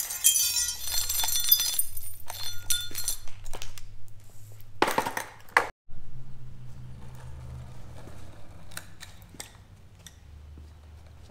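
Clinking and rattling of small hard objects, dense and ringing for the first few seconds, then a short loud rush of noise about five seconds in, followed by fainter scattered clicks.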